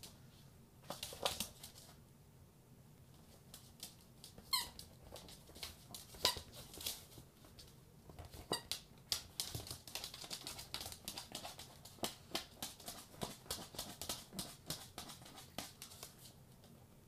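A squeaky ball toy squeaking a few short times as a small dog mouths and paws it, among many light clicks and taps that grow busier in the second half.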